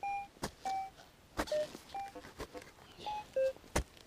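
Metal detector, an AKA Berkut 5, giving short beeps that keep jumping in pitch: an inconsistent signal over an unclear target. About seven beeps, with four dull thuds of a shovel in the soil about a second apart.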